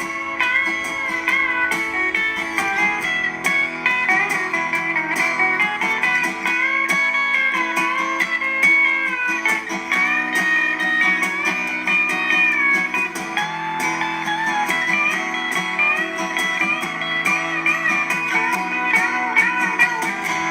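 Background music: an instrumental passage led by a slide-style guitar playing a bending melody over held chords.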